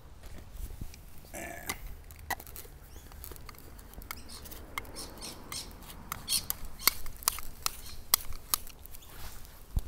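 Plastic clicks and rattles from handling a hose spray gun and twisting its small bottle into place. The sharp clicks are scattered, and they come more often in the last few seconds.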